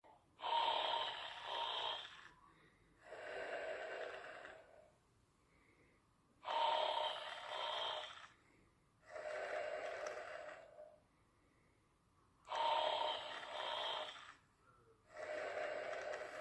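Snoring in slow, even sleep breathing. Three breath cycles come about six seconds apart, each a louder snore in two parts followed by a longer, softer breath sound.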